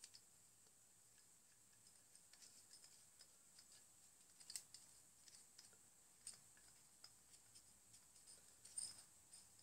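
Near silence broken by a handful of faint clicks as a small screwdriver tip taps and scrapes inside the metal bore of a brake master cylinder, spreading grease; the clearest clicks come about halfway through and near the end.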